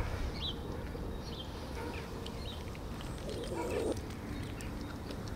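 Cats eating wet food from a plastic tub, with faint scattered chewing clicks, over a low steady rumble. Faint short bird chirps come through in the background.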